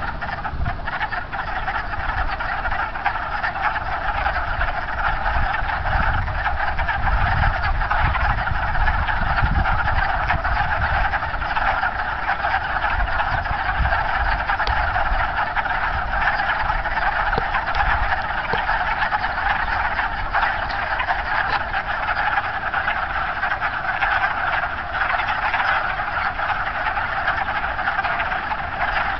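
Dense, steady breeding chorus of many wood frogs calling at once. A low rumble sits underneath, strongest in the first third.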